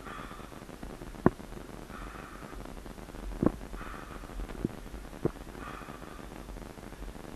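A person breathing hard and rhythmically, a breath about every two seconds, with four short sharp knocks or clicks in between.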